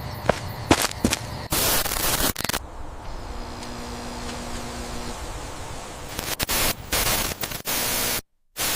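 Bursts of loud static hiss, CCTV-style noise, in on-off blocks over a steady lower hiss. A few sharp clicks come in the first second, and the sound cuts out completely for a moment near the end.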